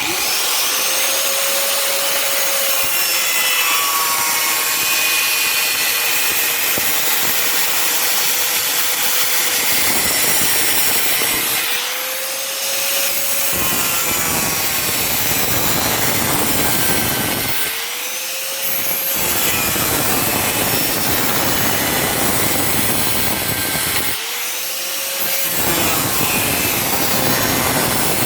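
Angle grinder with a cut-off wheel cutting along a clamped straight-edge guide, a loud continuous grinding with the motor's steady whine underneath. The whine sags and recovers three times as the wheel is eased and pressed again.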